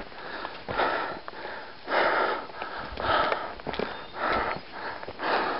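A hiker breathing hard, a loud rushing breath about once a second, as he climbs steep ground above 10,000 feet. Small clicks and crackles of footsteps through brush fall between the breaths.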